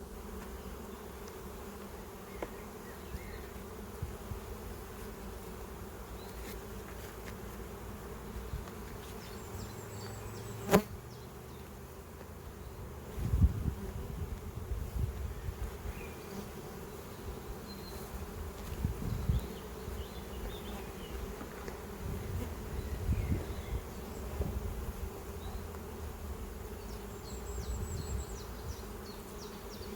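Honeybees buzzing steadily in a constant hum. A single sharp click about eleven seconds in, and a run of low, irregular thumps in the middle stretch.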